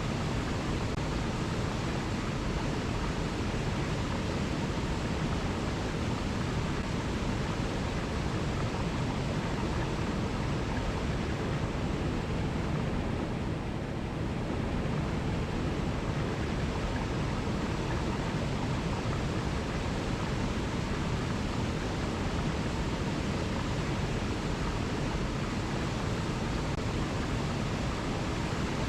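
Mountain river rushing over cascades: a steady, even water noise, fullest in the low range, briefly a little softer about halfway through.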